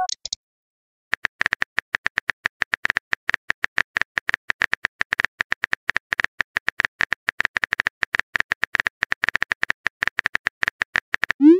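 Rapid keyboard-typing clicks from a texting-story app's sound effect, about eight or nine even ticks a second as a message is typed out. Right at the end comes a short rising swoosh as the message is sent.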